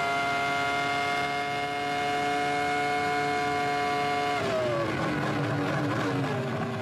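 Ferrari F2002's 3.0-litre V10 Formula 1 engine held flat out at about 17,500 rpm, a steady high-pitched scream. About four and a half seconds in, the pitch falls in steps as the driver brakes and changes down through the gears.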